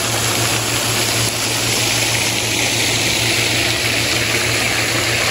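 Floating pond fountain spraying, a steady rush of water falling back onto the pond, with a steady low hum underneath.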